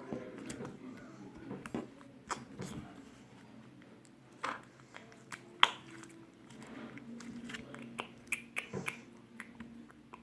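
Slime being squished and kneaded by hand as modelling clay is worked into it, making scattered sticky clicks and pops.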